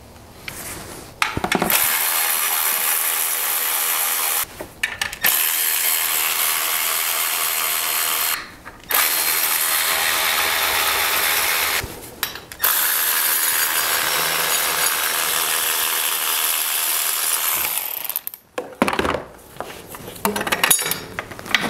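Milwaukee cordless ratchet running in four bursts of a few seconds each, the last the longest, backing out the bolts of the alternator's lower mounting bracket. A few clicks of parts being handled follow near the end.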